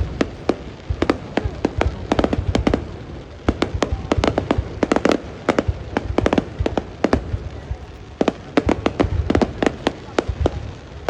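Fireworks going off: a dense, irregular string of sharp bangs and pops, several a second, with a few longer crackling clusters.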